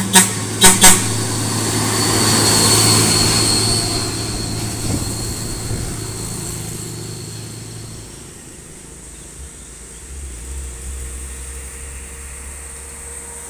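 Hino truck hauling a container, its diesel engine pulling uphill with a high turbo whistle, growing louder as it passes and fading away after about eight seconds. It opens with three short horn toots, and another vehicle's lower engine note comes in near the end.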